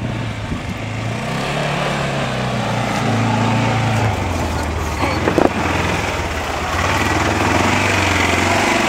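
Arctic Cat Prowler XTX 700 side-by-side's engine running at low speed as it crawls over rock, its pitch dropping a little about four seconds in. A sharp knock sounds about five seconds in.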